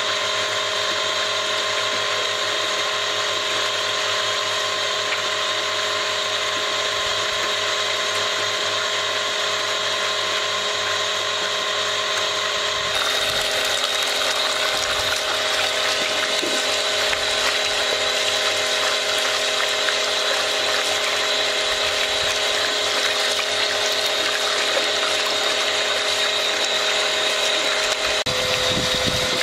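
Water from a hose splashing into a steel basin as nettle leaves are rinsed by hand, over the steady whine of a small motor water pump. The splashing gets brighter about halfway through.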